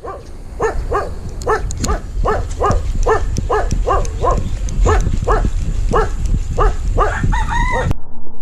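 A dog barking over and over, about two to three short barks a second, under a steady low rumble. The barking ends with a brief wavering call and then cuts off abruptly near the end.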